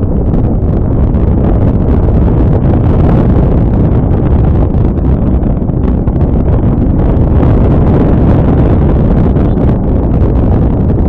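Wind buffeting the microphone of a Honda Scoopy scooter in motion: a steady, loud, low rumble mixed with road noise, with no clear engine note standing out.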